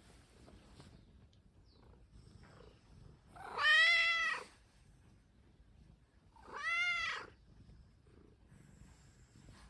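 A domestic cat meowing twice, each meow rising and then falling in pitch; the first is longer and louder, and the second comes about three seconds later.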